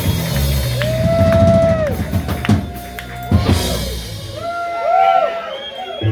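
Live rock band with drum kit playing the final bars of a song, ending on a couple of sharp drum hits; the music stops about four seconds in and voices follow.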